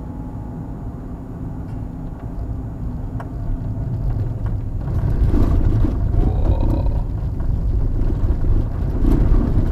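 Car driving, heard from inside the cabin: a steady low rumble of engine and road noise that grows louder about halfway through.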